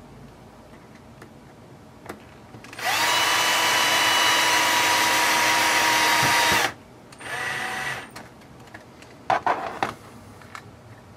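Cordless drill-driver driving a screw into a plastic RC truck chassis part: the motor spins up and runs steadily for about four seconds, then a short, quieter second burst snugs the screw. A few sharp clicks from handling the tool and part near the end.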